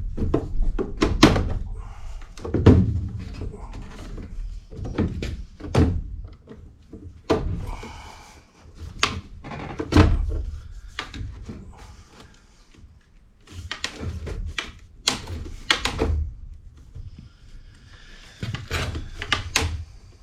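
Irregular knocks, thunks and clatter of hand work with tools and parts: about fifteen sharp impacts spread unevenly, some with a short ring.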